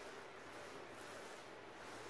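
Faint, steady soft noise of a paint roller spreading wet carpet adhesive across a boat deck.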